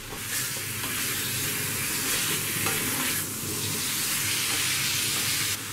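Chicken pieces searing in hot coconut oil in a wok, sizzling with a steady frying hiss while a spatula stirs and turns them.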